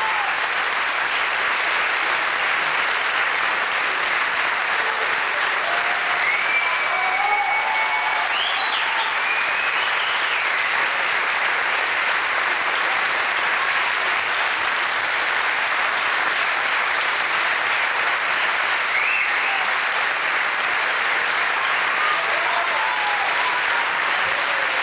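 Theatre audience applauding steadily through a curtain call. A few brief cheers rise above the clapping about a quarter of the way in and again later.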